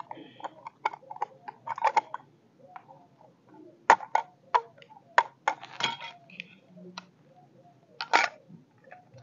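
Perforated steel floor-drain grating clinking and scraping against the drain rim as it is worked back into place: a string of sharp metallic clicks, loudest about four seconds in and again near the end.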